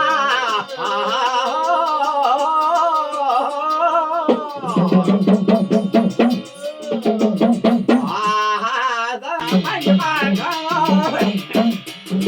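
Uttarakhandi devotional song: a singer holds a long, wavering note, and about four seconds in a hudka hourglass drum comes in with a steady beat under the voice. Near the end the drumming turns to quick, dense strokes.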